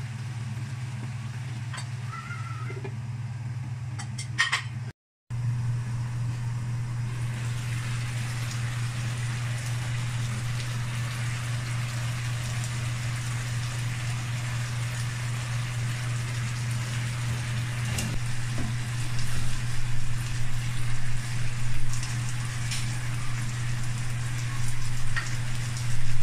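Braised eggplant and pork belly in sauce simmering and bubbling in a nonstick wok, over a steady low hum. A spatula scrapes and taps the pan a few times in the first seconds, and the bubbling grows louder and more uneven in the last several seconds.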